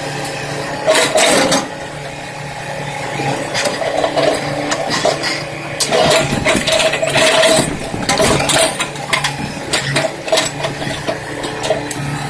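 Caterpillar backhoe loader's diesel engine running under hydraulic load as its backhoe arm pushes the machine up onto a dump truck, the engine note rising and falling in surges with irregular knocks from the machine.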